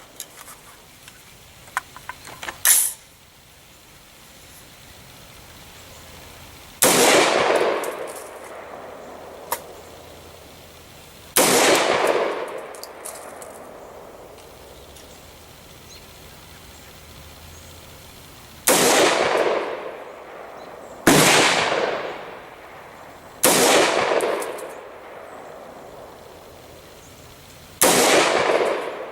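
AR-15 pistol with an 8.5-inch barrel fired six times as single shots, a few seconds apart, each shot trailing an echo that dies away over about a second. Light clicks and a short sharp clack come in the first three seconds.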